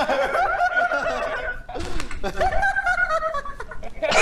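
People laughing and snickering, mixed with bits of talk.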